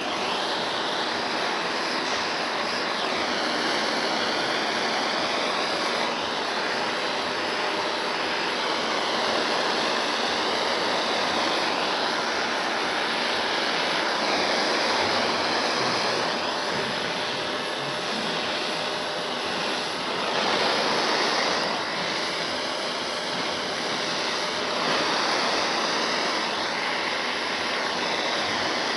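Gas torch flame hissing steadily while heating a steel weld seam for tinning and lead loading, with the tone shifting slowly as the flame moves along the metal.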